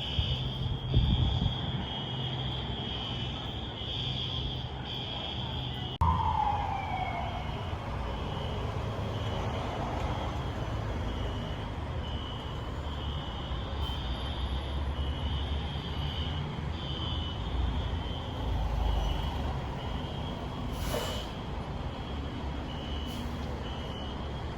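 Building fire alarm sounding a high, repeating pulsed tone, heard from inside a car, over the low hum of the car's running engine.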